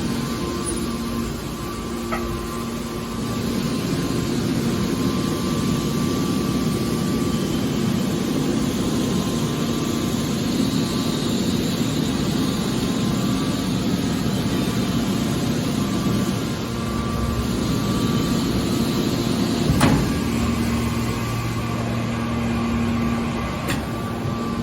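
Mobile scrap metal baler running: a steady machine hum with a few held tones, which change slightly partway through, and one sharp knock about twenty seconds in.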